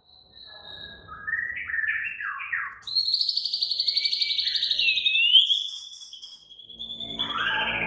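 White-rumped shama (murai batu) singing agitated, aggressive song: a run of short slurred whistles, then a long rapid trill held for about four seconds, and more varied notes near the end.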